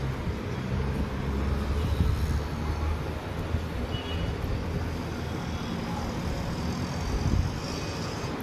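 A steady low rumble of background noise, with no speech.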